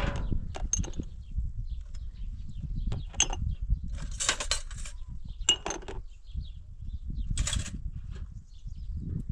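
Dishes clinking and clattering as plates and metal bowls are washed by hand in a metal basin: scattered short clinks, with a longer clatter about four seconds in, over a steady low rumble.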